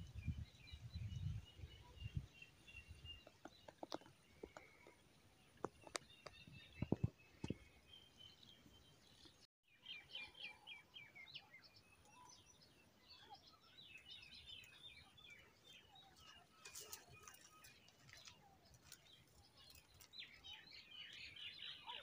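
Wild birds chirping and trilling with thin, high calls, faint overall. The calls grow denser after a brief dropout about ten seconds in and are busiest near the end. A low rumble comes at the start, and a few sharp taps fall in the first half.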